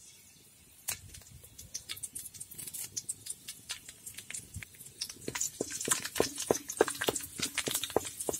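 Curry leaves crackling and popping in hot coconut oil in an aluminium kadai. Scattered pops at first, growing into a dense crackle from about five seconds in.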